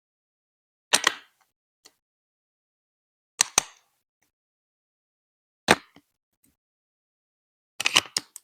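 Lego Duplo plastic bricks being set down and snapped together: sharp plastic clicks in ones and twos every couple of seconds, with a quick cluster near the end.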